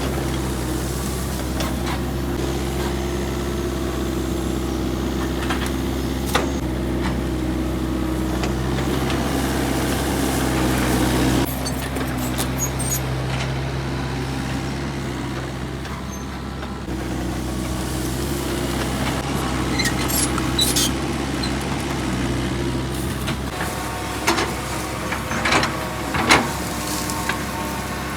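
Diesel engine of an excavator running steadily, its pitch and load shifting a few times. Several sharp metallic knocks come near the end.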